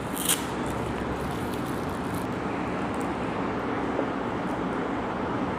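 Steady, even background noise, with a brief rustle or click just after the start.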